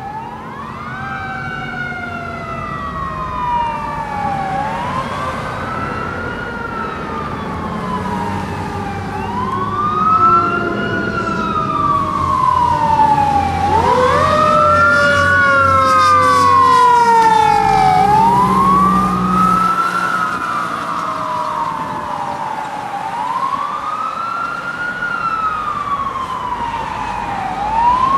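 Fire engine sirens wailing, rising and falling about every four and a half seconds, with a second siren sweeping lower beneath. A heavy engine rumble swells as the apparatus passes, loudest a little past the middle, then drops away while the wail carries on.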